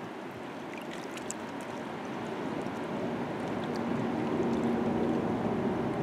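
Choppy river water lapping and splashing against shoreline rocks: a steady, even wash of water noise that grows a little louder toward the end.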